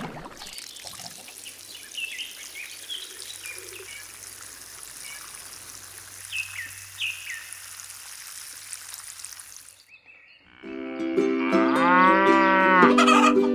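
Faint outdoor ambience with a few short bird chirps, then a cow moos once, long and loud, starting about eleven seconds in.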